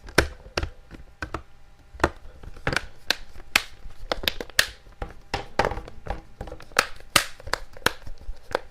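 A Samsung tablet's plastic back cover being pressed on by hand: a rapid, irregular series of sharp clicks and snaps as its clips catch around the edge.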